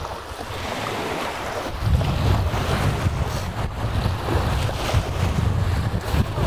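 Wind buffeting the microphone over a steady rushing hiss of wind and water; a heavy low rumble of wind on the mic sets in about two seconds in.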